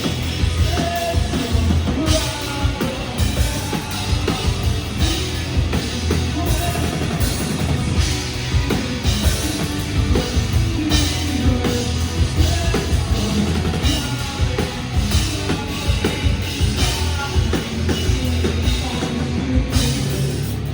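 Live hard rock band playing at full volume: drum kit, heavy electric guitars and bass, with a singer's vocals.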